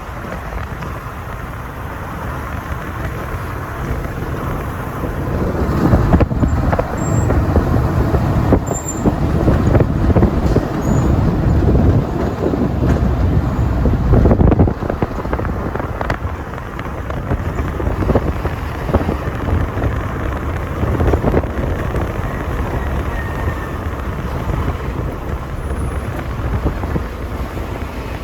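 Vehicle driving along a road: steady engine and road rumble with some wind noise, growing louder for several seconds in the middle, then dropping back suddenly.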